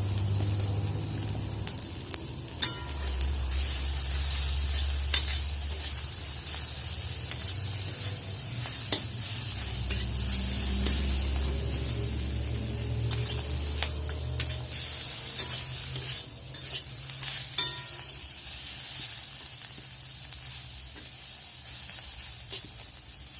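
A masala of fried onion, ginger-garlic paste and ground spices frying in oil in a karai, sizzling steadily while it is stirred, with a spatula now and then clicking sharply against the pan. The sizzling eases off in the last few seconds.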